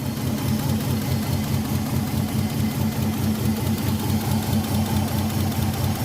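Old-model Nissan Maxima engine idling roughly with a heavy misfire from ignition coils that get no signal from the ECU. The idle changes as a tester feeds a direct pulse to a dead coil, which points to a faulty ignition driver chip inside the engine ECU.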